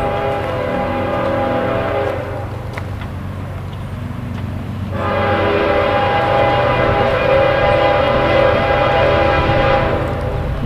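Norfolk Southern freight locomotive's air horn sounding two long chord blasts. The first ends about two seconds in, and a second, longer blast starts about halfway through and stops shortly before the end.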